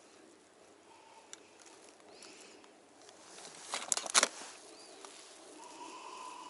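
Plastic lure packets rustling and crinkling as a hand rummages through a tackle box, with a short burst of crackles about four seconds in. A couple of small snipping clicks from scissors trimming a rubber jig skirt come earlier.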